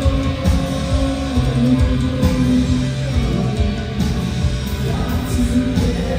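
Live rock band playing: electric guitar, bass guitar and drums through the venue's PA, with sustained guitar notes over a steady beat.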